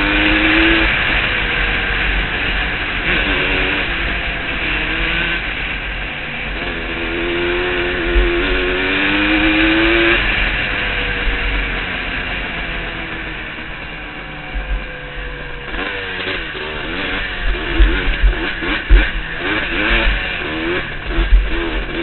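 Yamaha YZ125 two-stroke dirt bike engine under way, revving up through the gears with the pitch climbing and then dropping at each shift, over heavy wind buffeting on the helmet camera. In the last few seconds the throttle goes on and off in short, choppy blips with a few thumps.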